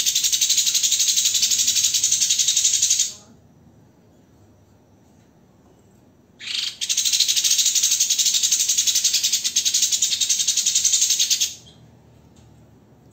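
A songbird's rapid-fire, dense and harsh trill (a 'tembakan'), its notes repeated too fast to count, loud. The first burst stops about three seconds in; after a pause a second burst starts past six seconds and runs about five seconds.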